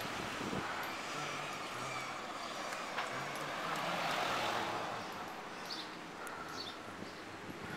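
Street noise heard from a moving bicycle: a steady rush of wind and traffic that swells to its loudest a little past halfway, with a few short high chirps near the end.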